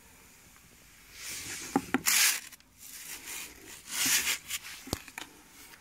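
Packaging being handled while a tool is unpacked from its carton: two spells of rubbing and rustling, each about a second long, with a few light knocks.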